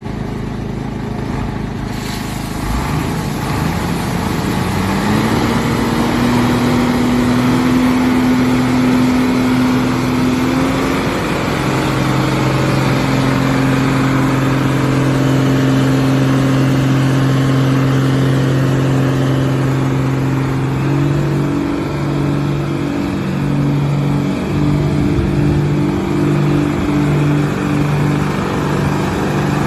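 Hino J08C inline-six diesel engine of a 1996 Hino Ranger water tank truck running, its speed rising a few seconds in and then held steady. From about two-thirds of the way through its note pulses about once a second, and near the end water from the rear sprinkler bar splashes onto the ground.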